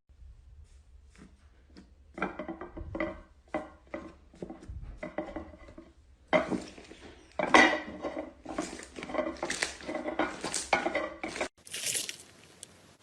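Slime being stirred and squished, making a run of quick sticky clicks and pops that come in clusters. There is a short lull partway through, and the sound changes near the end.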